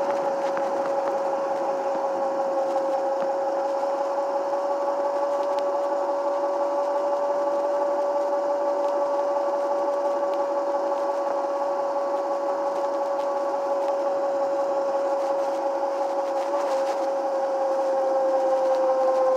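Schwinn S500 electric scooter's 24-volt, 500-watt motor whining at a steady pitch under way, over a hiss of drive and road noise. The whine sags a little in pitch near the end.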